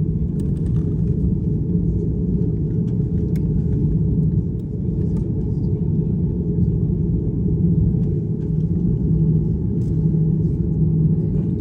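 Steady low rumble of cabin noise inside an Airbus A330neo on the ground, its engines running at idle as it taxis, with a steady hum under the rumble and a few faint clicks.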